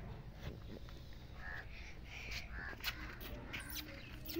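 Several short, harsh animal calls about a second and a half to three seconds in, over a steady low rumble.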